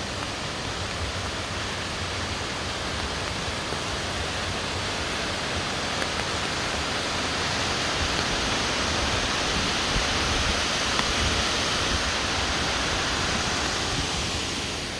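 Large waterfall, Fukuroda Falls, rushing steadily as an even wash of water noise with a low rumble beneath, growing a little louder in the second half and easing near the end.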